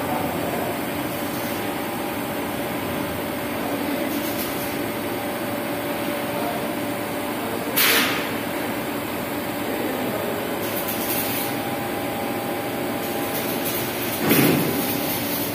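Automated linear TIG welding machine running: a steady hum and hiss from the welding set and the geared motor drive carrying the torch along the seam. Two short bursts of hiss cut through, one about halfway and a louder one near the end, as the arc goes out.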